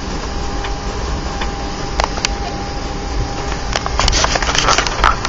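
Airliner cabin noise heard from a passenger seat: a steady rumble and hiss with a faint steady whine, joined about four seconds in by a run of sharp clicks and rattles.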